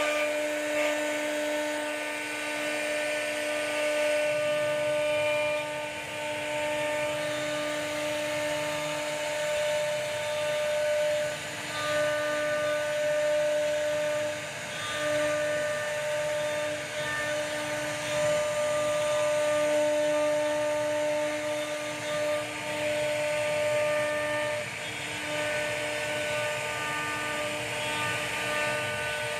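CNC router spindle running with a steady high whine as its small carving bit cuts relief patterns into wood, the cutting noise rising and dipping every few seconds as the bit moves through the cut.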